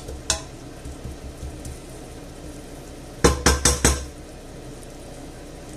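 A wooden spoon knocking against a stainless steel cooking pot: one light knock just after the start, then a quick run of about five knocks about three seconds in, as the spoon is tapped off on the pot.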